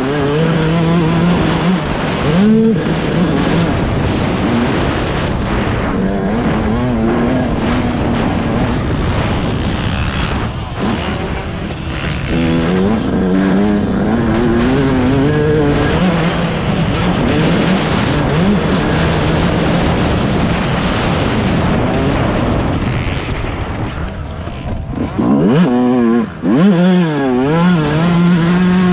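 Motocross dirt bike engines racing, rising and falling in pitch as the bikes rev, shift and back off, strongest again near the end.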